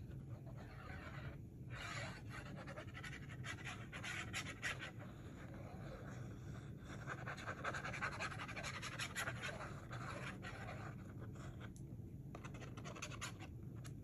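Faint scratching of a glue bottle's fine metal applicator tip drawn across paper as glue is squeezed out, with scattered small clicks.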